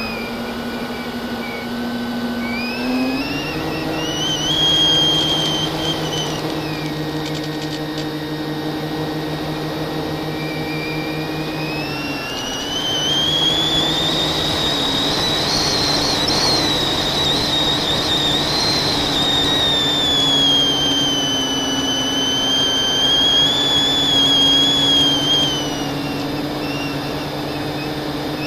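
FPV quadcopter's brushless motors whining, the pitch gliding up and down as the throttle changes, over a steady lower hum.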